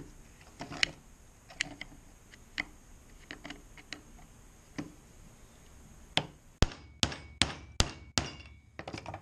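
Light metal clicks and taps of tools working on a small furnace gear motor, then a quick series of about six sharp hammer blows on its metal parts, some ringing briefly.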